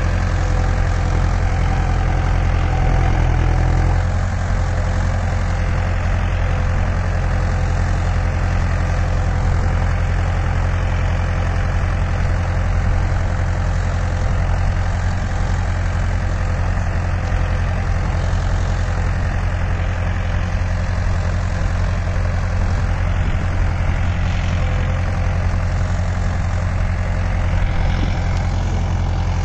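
Mahindra Arjun Novo 655 tractor's diesel engine running steadily under load while pulling a Lemken mouldboard plough, with a slight drop in the engine note about four seconds in.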